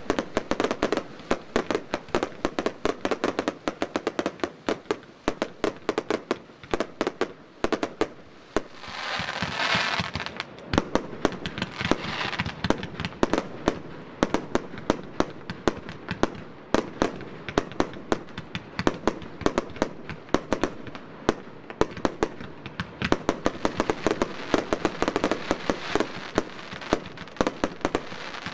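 F2 consumer firework batteries firing in rapid succession: a dense, continuous string of launch thumps and shot bursts. A rushing hiss swells over the bangs about a third of the way in and again briefly after.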